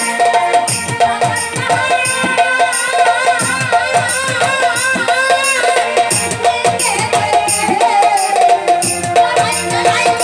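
Live Bengali folk song: a woman singing with vibrato over a band with steady rhythmic percussion and a repeating instrumental note.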